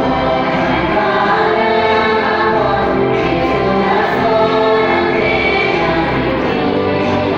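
A choir singing an offertory hymn over musical accompaniment.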